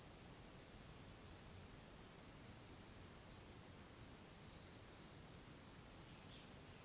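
Near silence: faint background hiss with a handful of short, faint high-pitched chirps scattered through the first five seconds.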